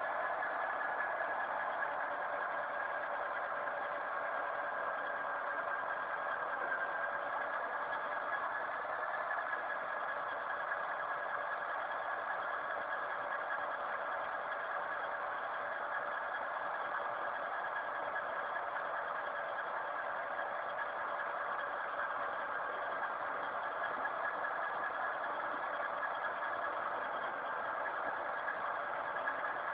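Electric pipe-cutting saw running steadily: an even motor whine over a rough, steady noise, with no pauses or changes.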